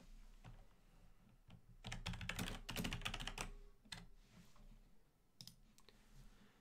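Typing on a computer keyboard: a quick run of keystrokes about two seconds in, lasting about a second and a half, then a few single clicks.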